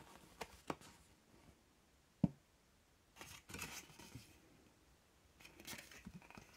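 A TDK AD90 cassette's folded paper J-card being unfolded and handled, with faint rustling and crinkling of the card and a sharp click a little over two seconds in.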